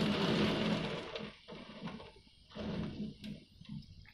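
Heavy storm rain and gusting wind. The noise is loudest in about the first second, then rises and falls unevenly as the gusts come and go.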